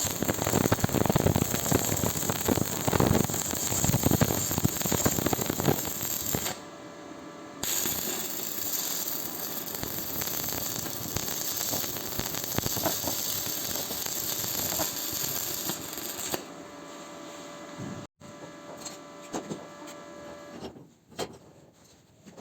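A small electric power tool runs with a steady high whine. It stops for about a second some six seconds in, runs again, and cuts off about two-thirds of the way through. Light clicks and knocks follow.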